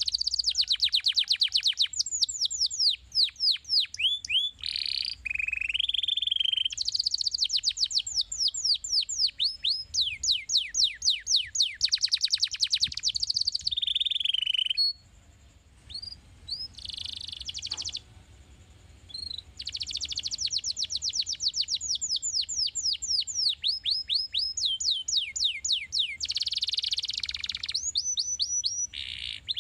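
Domestic canary singing: long, rapid trills of falling whistled notes, with a pause of a few seconds about halfway through.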